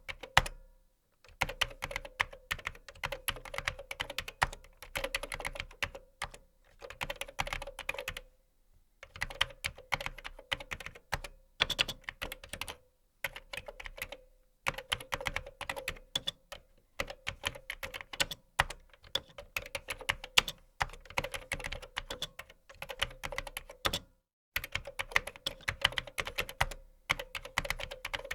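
Fast typing on a computer keyboard, dense runs of key clicks broken by several short pauses.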